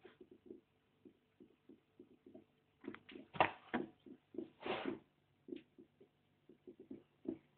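Plastic S-shaped airlock on a fermenting beer bubbling: carbon dioxide from the working yeast pushes through the water in an irregular run of small pops and clicks, with a few louder gurgles about three to five seconds in. The steady bubbling is the sign of active fermentation.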